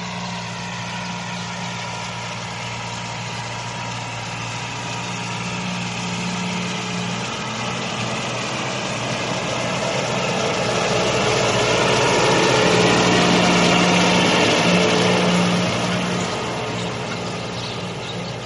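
A steady engine drone, like a tractor running, growing louder around the middle and easing off near the end.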